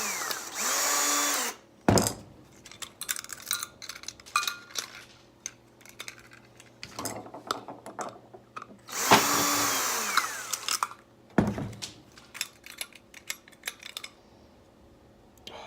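A cordless drill-driver motor running in two bursts, spinning up and winding down each time, as it backs screws out of a hard drive. Between and after the bursts, small metal parts and screws click and clatter.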